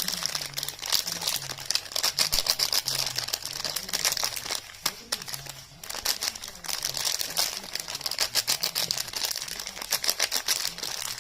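Soap packaging being handled and unwrapped close to the microphone: dense, quick crinkling and crackling of the wrapping, with many small clicks and an occasional tear.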